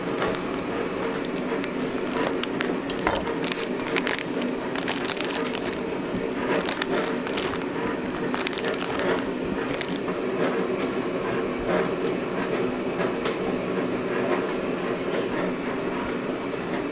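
Vacuum-sealed plastic sausage packaging crinkling and crackling as gloved hands pull it open, over a steady hum of kitchen machinery. Near the end a few knife cuts through sausage on a plastic cutting board.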